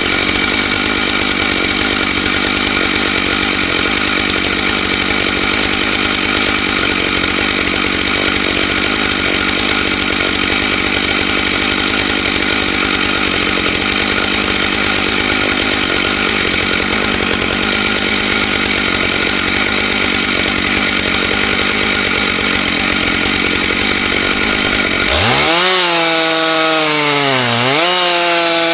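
Stihl MS 661 two-stroke chainsaw running at steady high revs under load, ripping along a log in a chainsaw mill with a ripping chain. About 25 seconds in the sound changes abruptly, and the pitch dips and climbs back twice.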